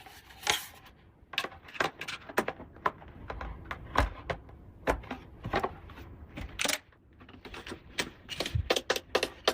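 Small plastic toy pieces clicking and tapping as they are handled and set in place: irregular sharp clicks about one a second, with a short lull and then a quicker run of clicks near the end.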